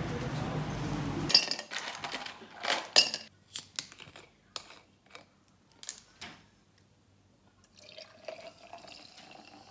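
A run of short, sharp clinks and taps, about a dozen at irregular intervals over five seconds, with a brief ring after the louder ones. They follow a steady noisy background that cuts off abruptly about a second in.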